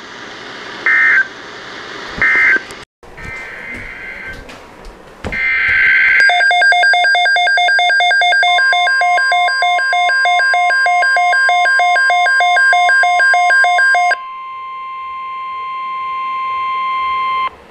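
Two short loud beeps from a weather radio, then the SAME data header of a NOAA Weather Radio flash flood watch as two roughly one-second screechy bursts. Then the Midland weather radio's alert alarm, a fast-pulsing beep, runs for about eight seconds. Under it starts a steady 1050 Hz warning tone, which continues alone for a few seconds after the pulsing stops and cuts off shortly before the end.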